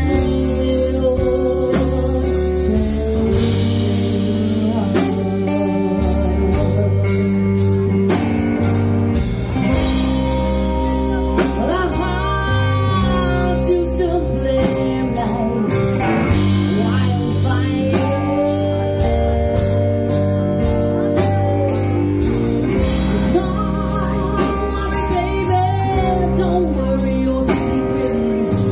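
Live blues band playing: a woman sings over electric guitar, bass guitar, drum kit and keyboard, with a steady drum beat.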